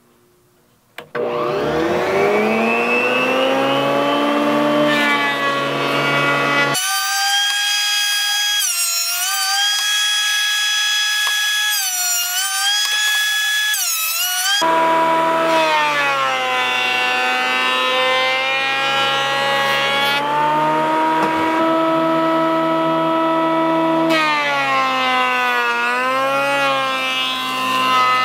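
Delta benchtop jointer starting up about a second in with a rising whine, then running steadily as rough-cut corbels are fed across the cutterhead to flatten their backs. Its pitch sags briefly several times under the load of the cut.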